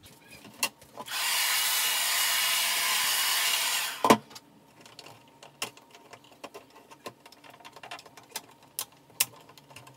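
A steady hiss of air or spray for about three seconds, then a sharp clack, then light scattered clicks and taps of hard plastic parts being handled.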